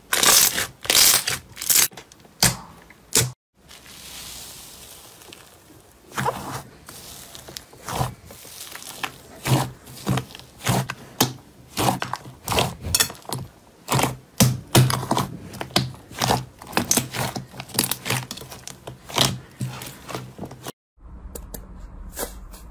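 Hands pressing, squeezing and poking slime: a fast, irregular run of sticky clicks and pops. The sound drops out briefly about three and a half seconds in and again near the end.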